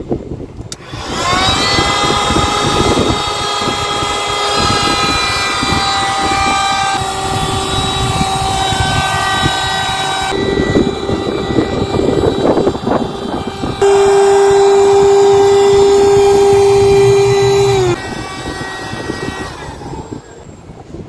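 Handheld electric air pump inflating an air mattress: the motor spins up about a second in and runs with a steady whine. Its pitch and loudness shift slightly a few times, and near the end it switches off and winds down.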